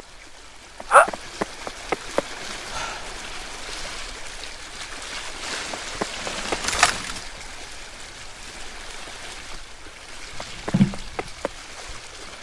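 A steady hiss of background noise, rain-like, with a few sharp clicks in the first two seconds, one sharp crack about seven seconds in, and a low thump near eleven seconds.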